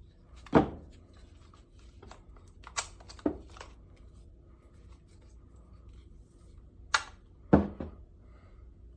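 Scattered knocks and clicks of robot knee parts being handled and fitted as the leg rod is inserted into the knee assembly, about five sharp taps spread over several seconds, the loudest near the start and near the end.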